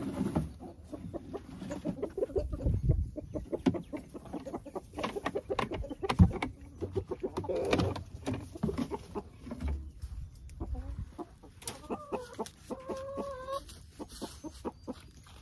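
Ameraucana chickens clucking in a breeding pen, with a run of pitched clucks near the end, over rustling in straw and the handling of plastic nest boxes as an egg is taken out; one sharp knock about six seconds in.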